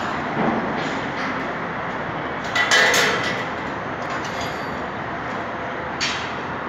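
Alimak rack-and-pinion construction hoist running as it climbs its lattice mast: a steady mechanical noise with metallic clanks and rattles, the loudest about three seconds in and others near the start and about six seconds in.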